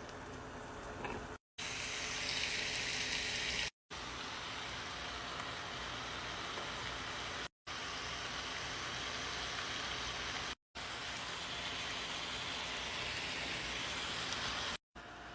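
Food sizzling in a frying pan, a steady hiss, loudest about two seconds in. It is broken by five brief drops to silence where short clips are cut together.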